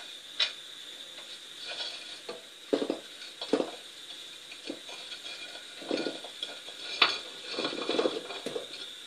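Wooden spatula knocking and clinking against a ceramic plate and the pan in irregular strokes as fried gulab jamun balls are pushed into a pan of simmering sugar syrup, the syrup bubbling faintly underneath.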